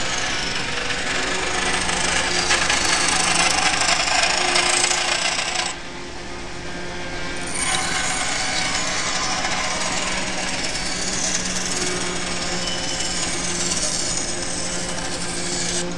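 A power tool, most likely a sander, working cedar furniture: a steady motor hum under loud abrasive rubbing. It eases off for about two seconds near the middle, then bears down again.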